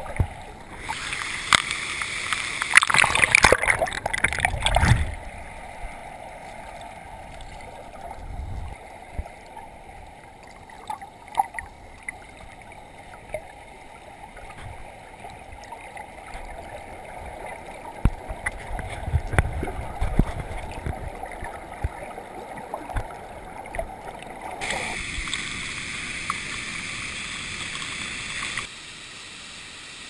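Splashing and rushing water for the first few seconds, then about twenty seconds of muffled underwater rumble in a waterfall's plunge pool with scattered clicks and knocks. Near the end the sound comes back above the surface as the waterfall's steady rushing.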